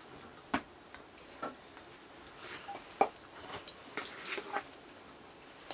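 Quiet eating by hand from metal plates: fingers and food scraping and tapping on the steel plates, giving a handful of small sharp clicks, the loudest about three seconds in.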